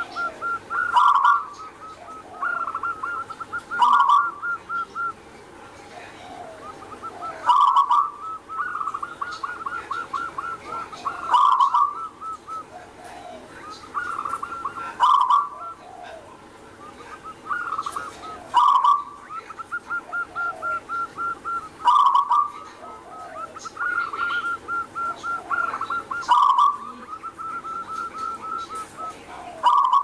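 Zebra dove (perkutut) singing its cooing song: phrases of quick staccato coos, each with a louder accented note, repeating about every three to four seconds.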